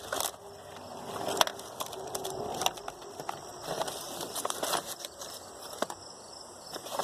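Loose metal hand tools clinking and knocking as someone rummages through a toolbox: irregular sharp clicks over rustling, with one louder clack about a second and a half in.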